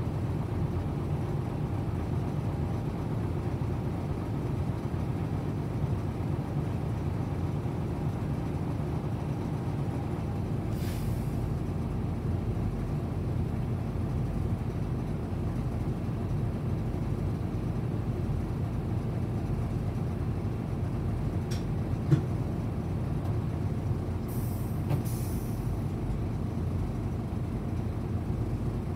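Diesel engine of a Hino Blue Ribbon city bus idling steadily, heard from inside the passenger cabin. Short hisses of compressed air come once about eleven seconds in and twice more near the end, with a single sharp knock shortly before them.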